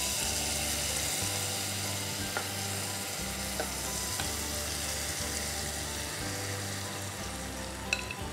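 Yogurt-marinated vegetables sizzling in hot oil in a saucepan just after being tipped in. The sizzle is loudest at first and slowly dies down, and a wooden spatula taps lightly as it starts stirring near the end.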